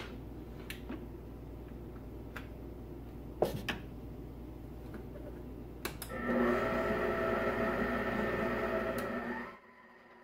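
A few sharp plastic-and-metal clicks as the stand mixer's pouring shield and head are fitted. About six seconds in, the mixer's motor starts and runs with a steady whine as the flat beater mixes the wet whole wheat bread dough; the sound drops off suddenly near the end.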